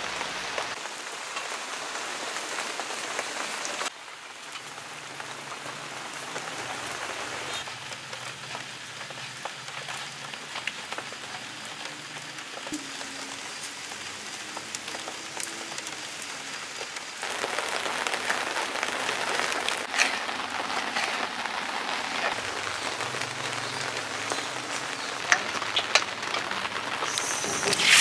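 Steady rain falling, an even hiss with individual drops pattering on surfaces. The level drops at about four seconds in and rises again at about seventeen seconds.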